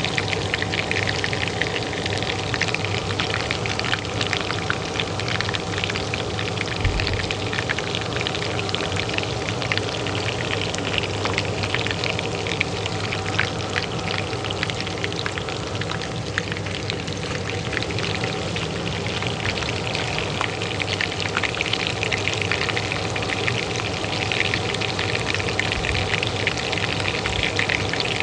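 Oil frying in a pan, a dense steady crackle and sizzle, over the steady hum of a kitchen range hood fan.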